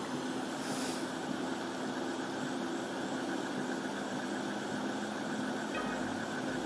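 Steady mechanical hum over a hiss, like a motor running without change. A brief rustle on the microphone comes about half a second in.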